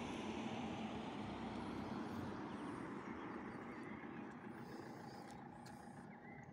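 A motor vehicle passing on the street, its engine and tyre noise fading steadily away.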